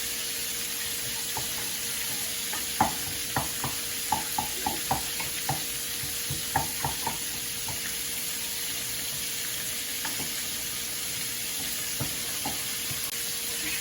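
Minced garlic and onion sizzling in melted butter in a pan. A quick run of light clicks and taps, a utensil stirring against the pan, comes about a quarter of the way in and lasts a few seconds.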